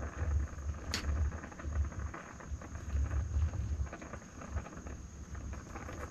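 Gas canister stove burning under a titanium pot of boiling instant noodles, with a low, uneven rumble. Faint scraping as the noodles are stirred, and one sharp clink of the metal utensil against the pot about a second in.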